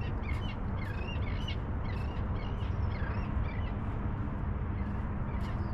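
Birds calling repeatedly in short, quick chirps, several calls a second, over a steady low background rumble.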